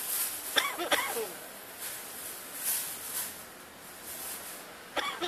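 Eclectus parrot making short talk-like calls about half a second in and again near the end. Between the calls come several brief, breathy, hissy sounds.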